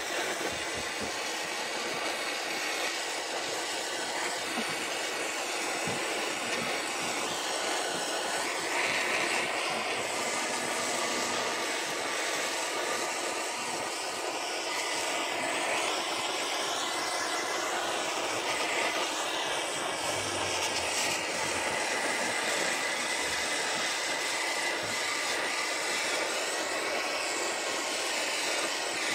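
Gas torch flame running with a steady roar as it scorches the surface of a chainsaw-carved wooden bear, darkening the wood before painting.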